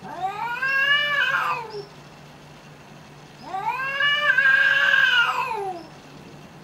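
Domestic cats yowling at each other in a fight standoff: two long, drawn-out yowls, each rising and then falling in pitch, the second starting about three and a half seconds in and lasting longer.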